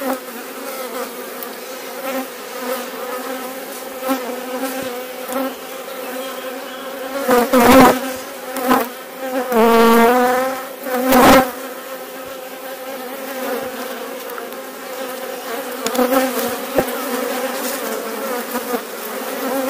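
Steady buzzing hum of a honeybee colony on an open hive frame, a colony the beekeeper finds a little angrier than last time but nothing too crazy. About halfway through, a bee buzzes close to the microphone, its pitch dipping and rising. A few sharp knocks come just before and just after it.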